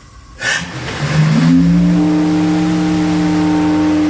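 Sinker Davis steam whistle blown in one long blast. A rush of steam hiss as the valve opens, then a deep note sounds up about a second in and a higher note joins it, held steady over a hiss of steam.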